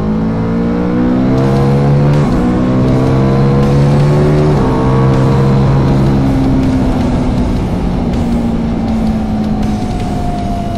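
Ducati Multistrada V4S's V4 engine accelerating through the gears: its note climbs and drops back at two upshifts, about two and four and a half seconds in, then holds and slowly falls as the bike eases off to cruise. Wind and road noise rush underneath.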